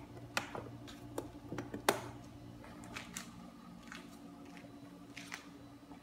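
A few scattered light clicks and taps, the loudest about two seconds in, over a low steady hum.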